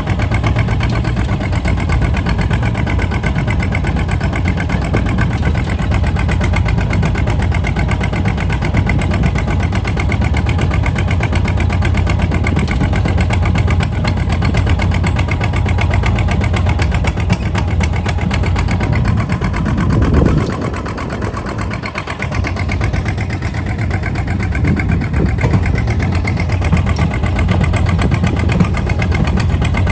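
Kubota ZT 155 DI single-cylinder diesel of a walking tractor running steadily under way, pulling a trailer. The engine sound dips briefly about two-thirds of the way through, then comes back up.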